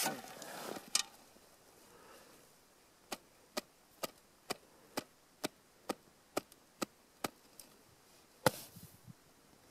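Hand tapping on a snow shovel blade laid on top of an isolated snow column during an extended column test: ten light, even taps about two a second, then one harder tap about eight and a half seconds in. That harder tap is the eleventh of the test, the one on which the column fractures on a buried depth hoar layer and the crack propagates across it (ECTP 11), a sign of an unstable snowpack.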